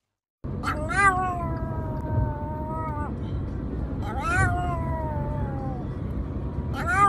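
Pomeranian howling in three long, drawn-out cries, each jumping up in pitch at the start, then held and sinking slowly, the last beginning near the end. Under the howls runs the steady low rumble of the moving car's cabin.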